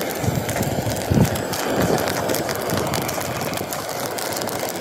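Metal ladle stirring popcorn through hot salt in an iron kadhai: a continuous scraping, rustling noise with light clicks, and irregular low rumbles under it.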